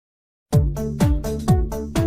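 Silence, then about half a second in an electronic dance-style phone ringtone starts: a deep kick drum beating twice a second under a short repeating synth melody.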